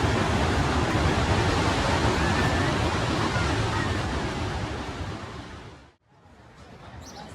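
Steady rushing of ocean surf at a beach. It fades away about six seconds in, almost to silence, then returns more quietly near the end.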